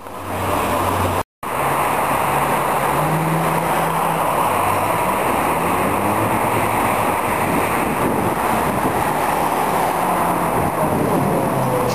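Wind rushing over the microphone of a camera riding on a moving bicycle, mixed with the running of car traffic alongside. The sound cuts out completely for a moment about a second in.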